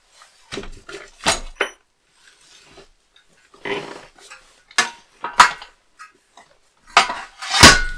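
Steel go-kart chassis parts knocking and clattering as they are handled and shifted on the workbench: a string of irregular sharp metal knocks, the loudest near the end, ringing briefly.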